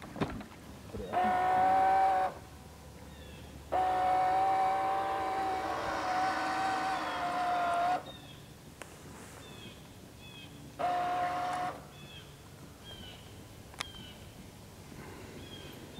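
Small electric motor of a toy RC fishing boat whining in three bursts of throttle as it is driven across the water, the longest about four seconds, the pitch holding steady through each burst.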